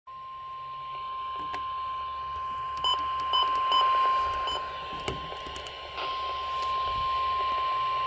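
NOAA Weather Radio warning alarm tone, the steady 1050 Hz tone that signals a warning, playing through a Midland WR120 weather radio's speaker, growing louder as the volume is raised. Four short button beeps from the radio sound between about three and four and a half seconds in as the volume-up button is pressed.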